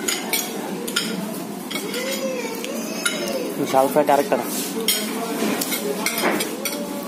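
Metal spoons and forks clinking and scraping on ceramic plates as several people eat, over background chatter of voices.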